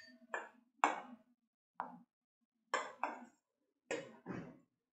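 Spoon scraping and tapping against a stainless steel bowl in short separate strokes, about seven in all, as it smooths a ball of soft bread dough.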